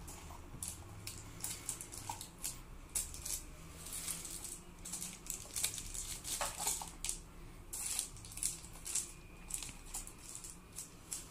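Handling of a Tenda AC10 router: an irregular string of small clicks and crinkles as its hinged antennas are swung up and their plastic sleeves rustle.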